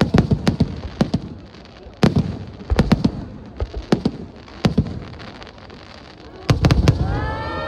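Aerial firework shells bursting in a string of sharp bangs at uneven intervals, with a rapid cluster of bursts about six and a half seconds in.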